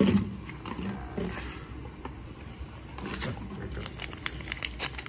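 A thin clear plastic bag holding a silicone case being handled, giving light rustling and then a run of sharp crinkles and crackles that grow denser over the last two seconds.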